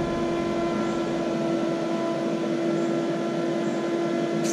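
Mosquito Magnet Patriot Plus power head running steadily with its propane burner lit: a constant fan hum with a steady tone. A brief click near the end.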